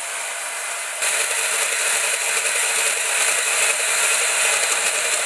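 Bandsaw blade cutting through a flat aluminum bar, a steady sawing noise that gets louder about a second in as the blade bites into the metal.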